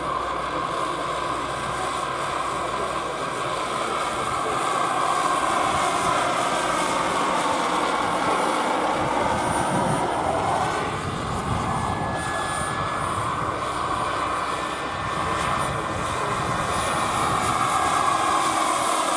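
Radio-controlled scale model helicopter flying, its engine and rotor whine held steady, the pitch slowly rising and falling as it manoeuvres.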